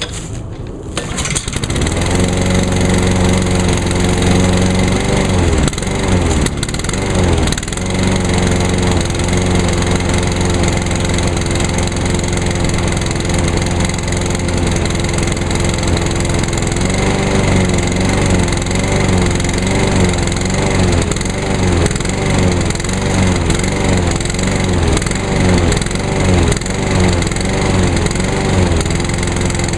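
Honda GCV160 single-cylinder engine on a 2003 Craftsman 21-inch push mower, starting on one pull about a second in and then running at a steady speed. In the second half its speed rises and falls about once a second.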